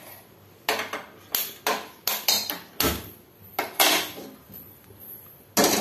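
Metal cookware clanking and knocking on a gas stove: about ten sharp, irregularly spaced knocks, with the loudest near the end.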